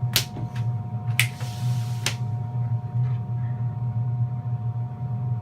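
Air conditioner running with a steady low hum and two faint steady tones. A few sharp clicks and a short burst of hiss come in the first two seconds.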